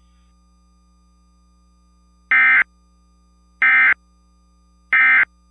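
Emergency Alert System end-of-message data bursts: three short, loud, buzzy digital squawks about a second apart. This is the SAME 'NNNN' code that closes an EAS alert broadcast.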